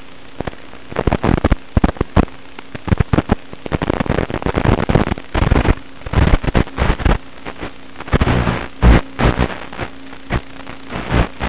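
Irregular crackling bursts of noise, some short and sharp, some longer, over a steady hiss and a faint steady hum, on the audio of a crashed FPV drone's camera feed.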